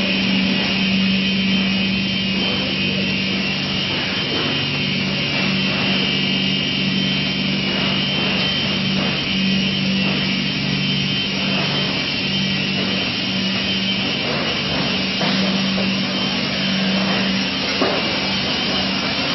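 Continuous PU sandwich panel production line running: a steady, loud machine hum with a constant hiss, and one sharp click near the end.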